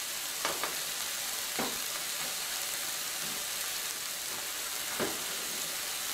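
Aderezo of onion, tomato, carrot and corn frying in oil in a non-stick pan, sizzling steadily, with a few sharp clicks.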